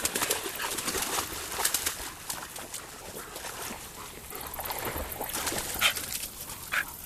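A dog whining: two short, high whines near the end, over rapid clicking and rustling in the first couple of seconds.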